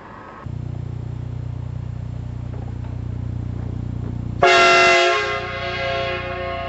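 A low steady hum starts about half a second in. About four and a half seconds in, a four-horn replica train air horn blasts a loud multi-tone chord that starts abruptly, then drops to a lower level and keeps sounding.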